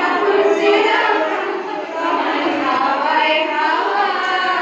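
A group of voices singing a song together, as a choir.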